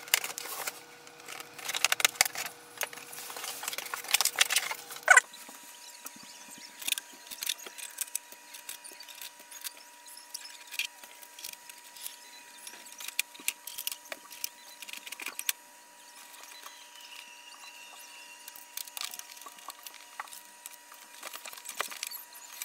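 Scissors snipping and scraping through packing tape on a cardboard box, cutting off abruptly about five seconds in. Then come sparse rustles, clicks and knocks as tape and packing sheets are pulled off the new printer, over a faint steady tone.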